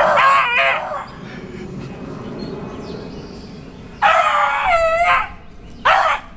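Beagle baying at a squirrel up a tree. There is a burst of baying at the start, one long drawn-out bay about four seconds in, and a short bay near the end.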